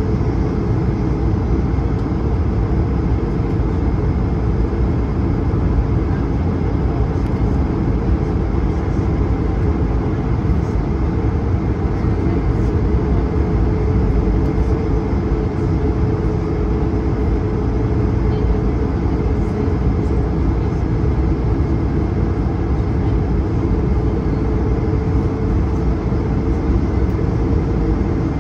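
Steady cabin rumble inside an Airbus A220-300 airliner, its Pratt & Whitney PW1500G geared turbofans running, with a constant hum in the rumble.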